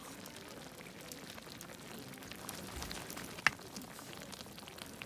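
Sukiyaki simmering in a pot, a steady light crackle of small pops and bubbles, with one sharp click about three and a half seconds in.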